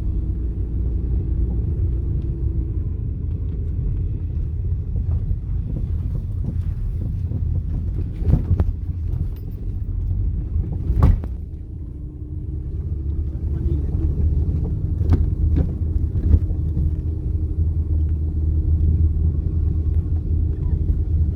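A car on the move, heard as a steady low rumble of engine and road noise, with a few short knocks or bumps, the loudest about eleven seconds in.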